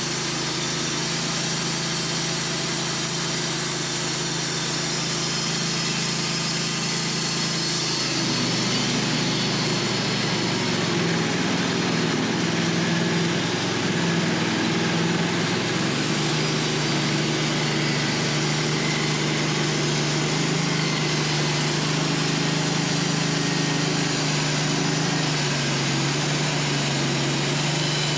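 Wood-Mizer LT15 band sawmill running steadily, a low machine note under a dense hiss. About eight seconds in the note shifts and drops lower, then comes back up around sixteen seconds.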